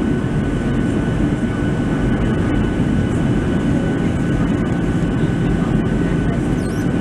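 Steady in-cabin noise of a Boeing 737-700 in flight: the jet engines and the air rushing past the fuselage make a constant low rumble, with a faint steady high tone on top.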